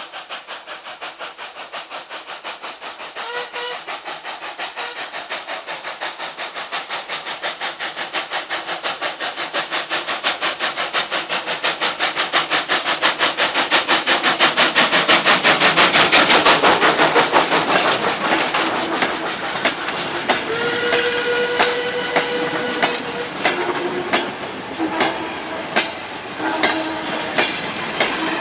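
Industrial steam locomotive hauling a coal train, its rapid even exhaust beats growing louder as it approaches and passes, then fading. After it passes come irregular clanks from the wagons and a few short held squealing tones.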